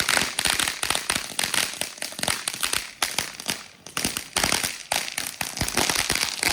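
Ground fireworks crackling and popping in a rapid, dense stream of small bangs, thinning briefly about halfway through and then picking up again.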